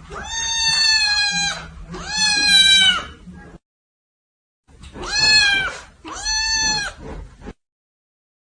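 A cat meowing four times in long, drawn-out meows that come in two pairs.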